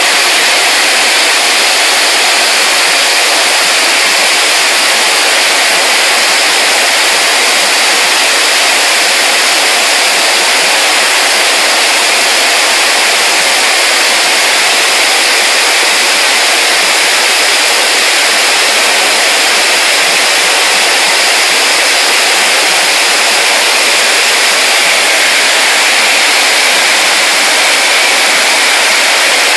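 Loud, steady hiss of high-pressure steam rushing through large pipework during steam blowing, the cleaning blow that drives debris out of new steam lines before commissioning.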